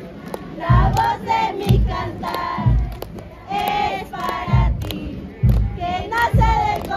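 Many voices singing together in a procession, over a low drum beat about once a second.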